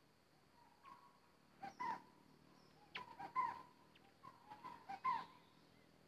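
Short, clear whistled bird calls, given a few notes at a time about once a second and louder in the second half. They come from a caged decoy songbird (nok dok taeng) and a wild bird at a cage trap.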